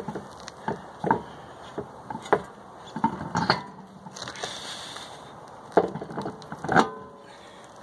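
Irregular knocks and clunks of a spare wheel being handled and lined up on the car's wheel studs.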